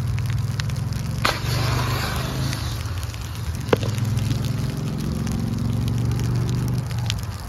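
A burning car and grass fire crackling, with two sharp pops, one about a second in and a louder one near four seconds in. Under it runs a steady low hum of a running vehicle engine.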